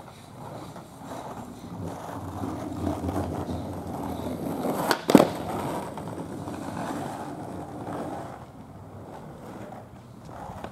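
Skateboard wheels rolling over rough asphalt, growing louder as the board approaches, with one sharp clack of the board about halfway through, then rolling on and fading away.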